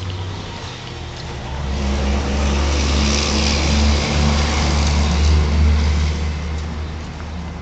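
A motor vehicle's engine running with a low, steady hum and a hiss. Both grow louder through the middle of the stretch and ease off again toward the end.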